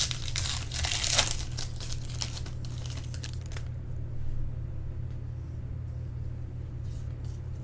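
Trading-card pack wrappers crinkling and cards being handled for the first three and a half seconds or so, then only a few faint clicks over a steady low hum.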